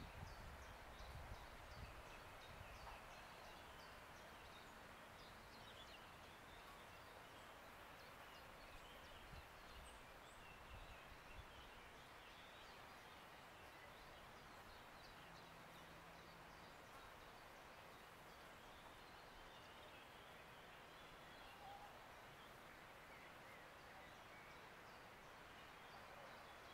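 Near silence: faint outdoor ambience, a steady hiss with many faint, short chirps of distant birds scattered throughout. A few low rumbles come in the first few seconds and again about ten seconds in.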